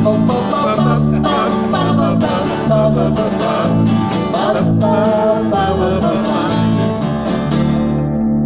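Live acoustic country-folk music: an acoustic guitar strummed steadily over a five-string fretless electric bass, with voices singing. The strumming stops near the end while the bass notes ring on, closing the song.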